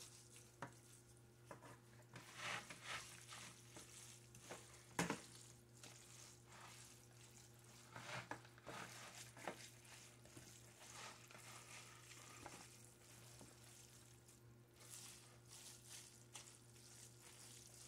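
Faint soft squishing and rustling of glass noodles and vegetables being stirred and tossed with a utensil in a plastic bowl, with a few light knocks, over a steady low hum.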